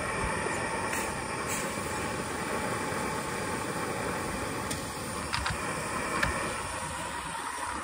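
Roundhouse 16mm-scale Vale of Rheidol live-steam model locomotive standing in steam: a steady hiss, with a few light clicks.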